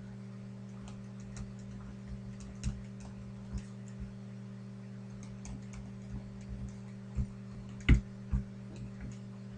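Anoto DP-201 digital ballpoint pen writing on a paper form: scattered light ticks and taps of the nib at irregular intervals, with one sharper knock about eight seconds in, over a steady low electrical hum.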